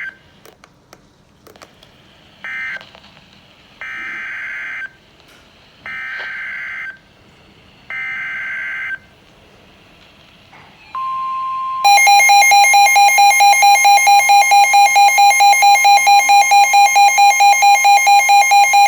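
Emergency Alert System tones. First come a couple of short data bursts and then three buzzy, screeching SAME header bursts of about a second each, evenly spaced. About eleven seconds in, a steady tone sounds briefly and gives way to a loud attention-signal alarm that pulses rapidly, three to four times a second, and cuts off shortly before the end.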